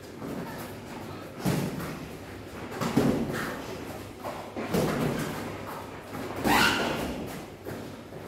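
Boxing sparring: padded gloves thudding on each other and on headgear, irregular blows a second or two apart, the loudest about three seconds in.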